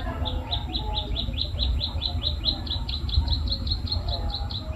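White-headed munia (emprit kaji) singing a fast, even run of short, high notes, about five a second, each dropping quickly in pitch. This is its imitation of the klik-klik (ciblek sawah) call. A low rumble runs underneath.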